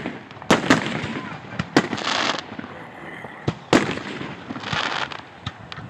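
Fireworks display: several sharp bangs of bursting shells, with crackling hiss from the bursts in between.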